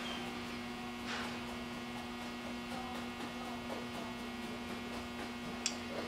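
Steady electrical hum with a few faint, light ticks.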